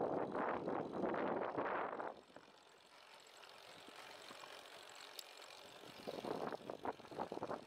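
Wind buffeting the microphone and the rumble of a moving bicycle on a cracked paved path. The noise drops away about two seconds in and comes back about six seconds in.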